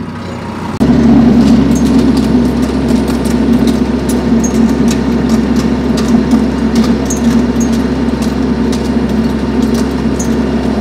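TYM 474 tractor's diesel engine running at working speed, driving a PTO-powered Baumalight stump grinder into a stump. The steady drone jumps suddenly louder about a second in, with scattered sharp ticks over it.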